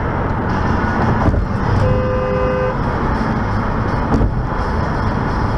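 Steady road rumble of a car driving on a wet highway, heard from inside the car, with a single car horn blast just under a second long about two seconds in.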